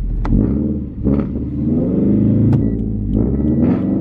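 Scion FR-S's flat-four engine running, its pitch rising and falling around the middle, with a few sharp clicks and a faint high whine that comes and goes in the second half. The car's clutch throwout bearing has failed.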